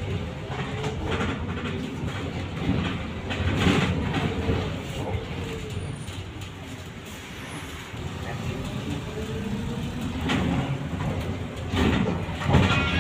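Ride noise inside a moving trolleybus: a steady low rumble from the road and body, with the electric drive's whine dipping and rising in pitch as the bus slows and speeds up. A few knocks and rattles come through, the loudest about four seconds in and near the end.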